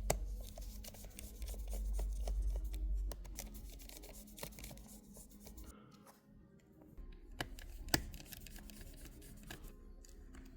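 Faint background music under small scattered clicks and scrapes of a T4 screwdriver working the tiny screws on the cover plates inside an M1 MacBook Air. A low rumble runs through the first three seconds, and the sharpest clicks come at the very start and about eight seconds in.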